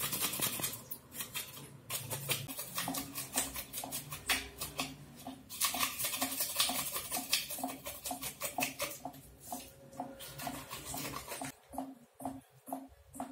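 A knife scraping and cutting fish on a hard block: quick, repeated scraping strokes, dense at first and then slowing to about two or three strokes a second.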